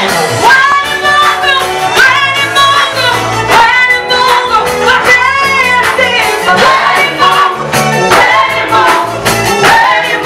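Gospel praise song sung by a group of singers over a band, with a steady beat and bass.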